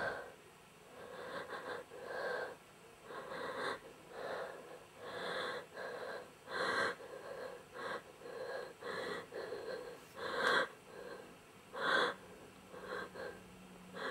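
A person breathing hard in short, ragged gasps, roughly one or two a second and uneven in strength.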